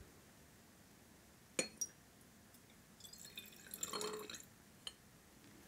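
Sodium thiosulfate solution poured from a glass measuring cylinder into a glass conical flask. A couple of faint glass clinks come about one and a half seconds in, then liquid splashes and trickles for about a second and a half, and a last small clink follows.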